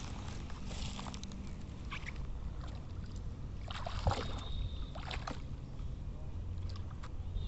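Shallow muddy water sloshing and splashing as a person wades knee-deep through it, with several short splashes, the loudest about four seconds in, over a steady low rumble.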